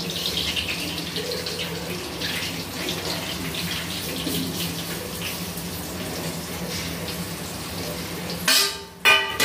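Steady sizzling hiss as wheat flour is poured into hot desi ghee in a metal kadhai. Near the end come two loud metallic clanks with a ringing tail, as the steel plate knocks against the pan.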